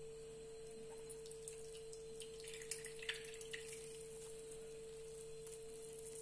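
Liquid squeezed by hand from grated potato, dripping and trickling into a glass bowl: a few scattered drips, then a short cluster of splashes about halfway through. A faint steady hum-like tone runs underneath.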